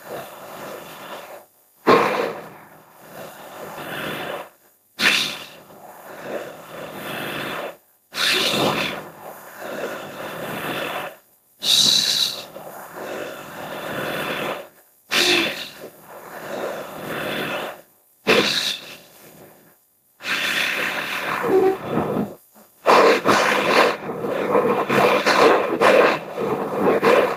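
Designed creature sound effects for an imagined gorilla–bear hybrid: a run of separate animal calls, each a second or two long with short silent gaps, coming about every three seconds, then a continuous unbroken stretch of calls for the last seven seconds or so.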